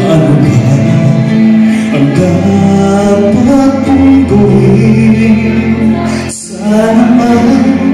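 A man singing a song through a microphone over instrumental backing music, with a brief drop in both about six and a half seconds in.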